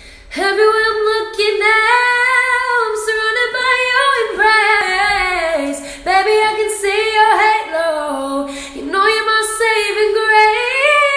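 A woman singing solo and unaccompanied, holding long notes with a slight waver. She breaks briefly for breath about six and nine seconds in, and her pitch dips lower just before the second break.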